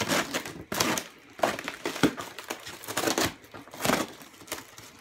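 Scissors cutting into a taped cardboard box: a run of irregular snips and rustling strokes of tape and cardboard being cut and pulled apart.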